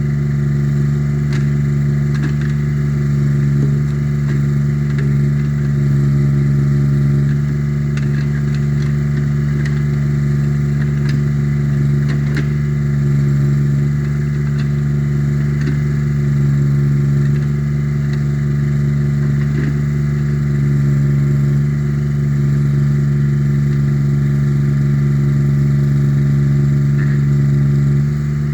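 Allmand 225 mini backhoe's engine running at a steady speed, with a few faint clicks and knocks from the machine.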